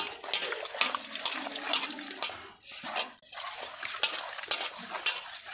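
Hands rubbing salted fish pieces against the bottom of a metal basin: repeated wet scraping strokes, about two a second, with a short break near the middle.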